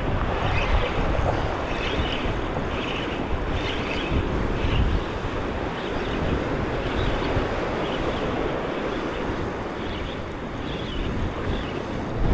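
Wind buffeting the microphone over small surf washing up a sandy beach, a steady rushing noise with gusty low rumble.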